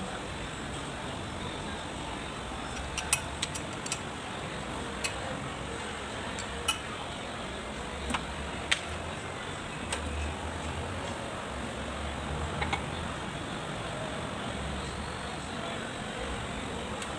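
Scattered sharp metallic clinks, about ten over the stretch, as metal tools and parts knock together during work on a rotovator, over a steady background noise.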